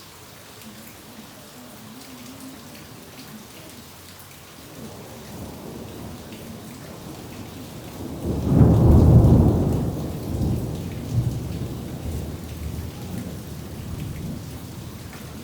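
Steady rain falling, with a thunderclap about halfway through: a low rumble builds, breaks into a loud deep crack and rolls away over several seconds.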